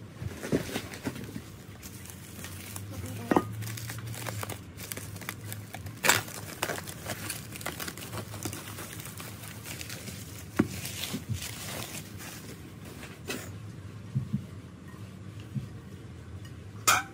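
Bubble wrap crinkling and rustling as it is cut open and pulled off ceramic dishware, with scattered clinks and a few sharper knocks of ceramic plates and bowls being handled.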